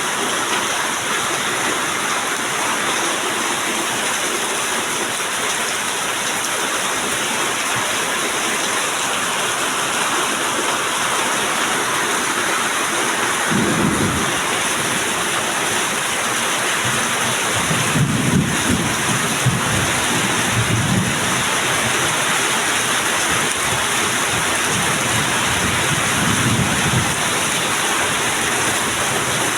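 Heavy rain pouring steadily. Low rolls of thunder sound about halfway through, again in a longer spell a few seconds later, and once more near the end.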